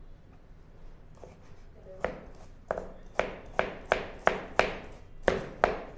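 Knife chopping a carrot on a plastic cutting board: a run of about ten sharp chops, roughly three a second, starting about two seconds in.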